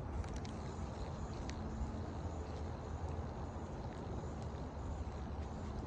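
Steady low rumbling background noise with a faint hum and a few faint clicks.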